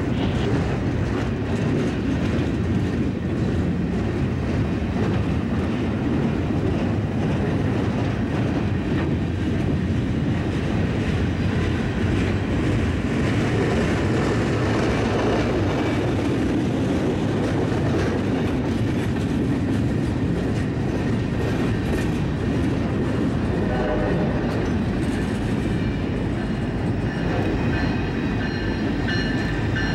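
Freight cars of a rail work train rolling slowly past, with steel wheels clicking over rail joints under a steady rumble. Over the last several seconds a pitched sound joins in as the shoving diesel locomotives draw near.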